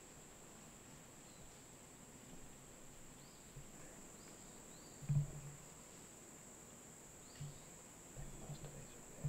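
Crickets keep up a steady high-pitched chirring drone, with a few soft low thumps, the loudest about five seconds in and a short cluster near the end.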